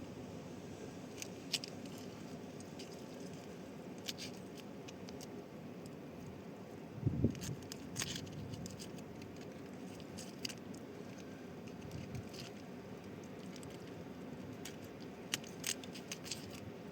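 Steady low rushing noise with scattered light clicks and taps, and one louder dull thump about seven seconds in.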